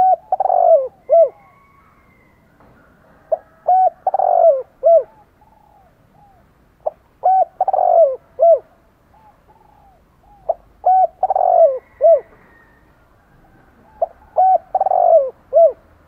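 Spotted dove cooing its territorial call, as a caged decoy: a phrase of a short note, a longer coo and a couple of quick falling coos, repeated about every three and a half seconds, five times.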